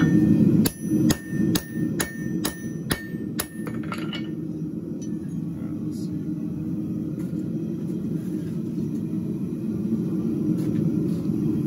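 Hammer blows on steel bar over an anvil while forging round bar square: a run of about eight ringing strikes, roughly two a second, over the first few seconds, under a steady low roar.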